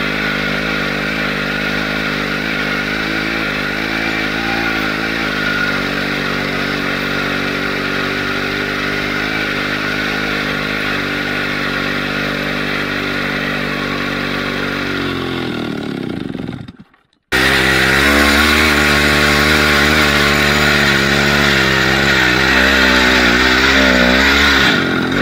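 Small two-stroke chainsaw engine of an all-wheel-drive motorcycle running steadily under load; about two-thirds of the way through its pitch falls away. After a brief gap it runs again, louder, its pitch wavering up and down.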